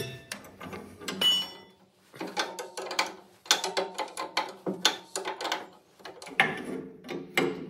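Steel spanners clinking and knocking against the top bolt of a Unimog 411's front coil-spring mount as it is worked loose with a combination spanner extended by a second ring spanner. A string of sharp metal clicks and knocks, with a short ringing clink a little over a second in.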